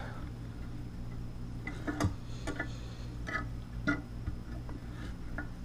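Scattered light clicks and taps as fingers and small bits of plastic knock inside a garbage disposal's grinding chamber while the debris is fished out by hand, over a faint steady low hum. The plastic bits are what made the disposal sound like something was down there.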